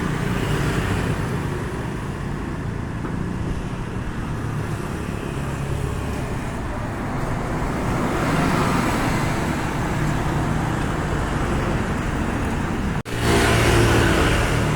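Road traffic, with motor vehicles running past and one passing closer about eight seconds in. About thirteen seconds in, the sound drops out for a moment and comes back louder, with a steady low engine hum.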